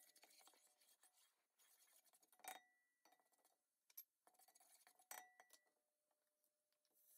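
Faint scraping and tapping of a wooden spatula stirring in a granite-coated nonstick pot, with two light clinks that ring briefly, about two and a half seconds in and again about five seconds in.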